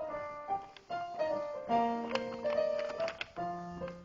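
Piano music: a quick run of single notes and chords, each struck note ringing on and fading.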